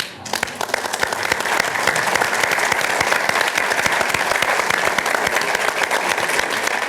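An audience applauding, many hands clapping at once. The applause starts suddenly, holds steady and begins to thin out near the end.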